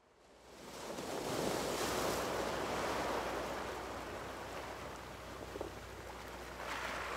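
A rushing wash of noise like ocean surf. It fades in from silence over the first second or so, swells to its loudest a couple of seconds in, then eases slightly and holds steady.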